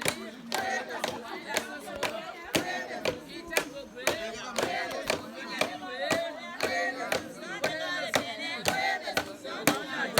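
A group of women singing together in a welcome song, over a steady beat of sharp claps or strikes about two a second.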